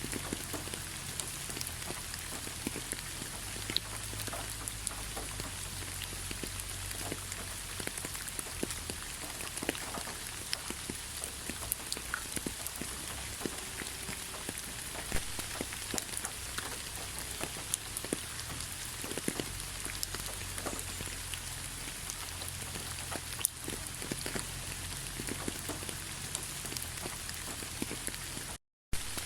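Steady rain falling, with many individual drops hitting close by as sharp ticks over a low rumble. The sound cuts out completely for a fraction of a second near the end.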